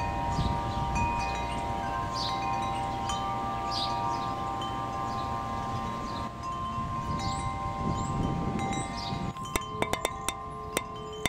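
Hanging metal-tube wind chimes ringing in the wind, with long overlapping tones and wind rumble on the microphone. Near the end, sharp clicks of rocks striking a hanging slate slab start up at about four a second over the ringing.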